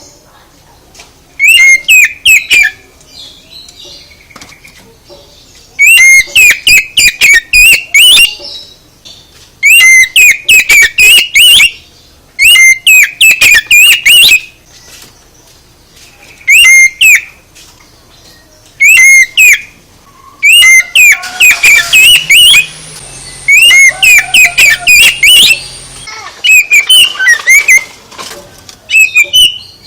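A songbird singing a loud, shrill, rapid warbling song in repeated bursts of one to three seconds with short pauses between, played as a recorded birdsong lure meant to provoke a caged oriental magpie-robin into answering.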